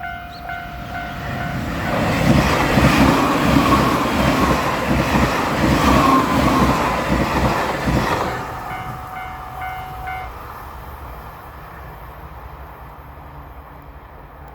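A Japanese level-crossing warning bell rings at the start. A limited express train then passes over the crossing for about six seconds, its wheels clacking rhythmically over the rail joints, and fades away. The bell tone sounds briefly again before stopping.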